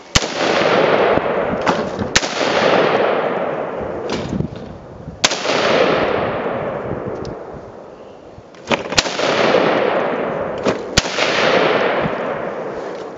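Rifle fire: five single shots spaced about two to four seconds apart, each followed by a long fading echo.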